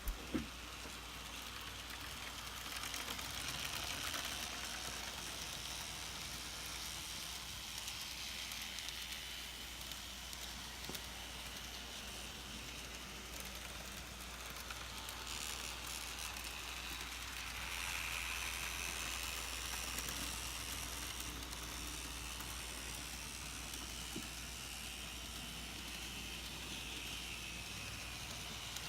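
N-scale model tram running on plastic street track: a faint whirring hiss from the small motor and wheels that swells and fades as the tram moves, over a steady low hum.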